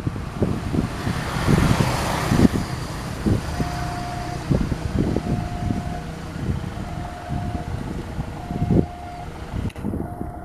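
Diesel-electric locomotive running slowly past, its engine rumbling, with irregular knocks from the wheels on the track. From about three and a half seconds in, a short steady beep repeats about once every 1.2 seconds.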